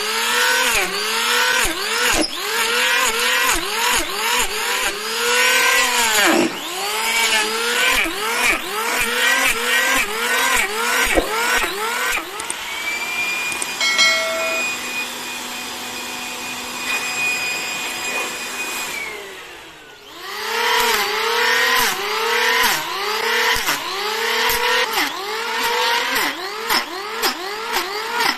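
Corded electric hand planer shaving a large wooden log, its motor dipping in pitch and recovering with each pass, about two strokes a second. The strokes give way to a steadier running sound for several seconds in the middle. The sound drops briefly before the strokes resume.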